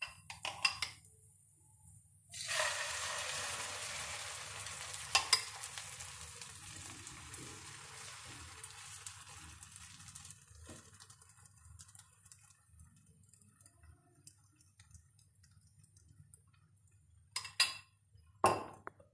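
Beaten egg with chopped vegetables hits a hot greased frying pan inside a hollowed bread slice and sizzles, sharp at first, then fading over several seconds as it sets. A few sharp knocks of a utensil against the pan come at the start, once in the middle, and twice near the end.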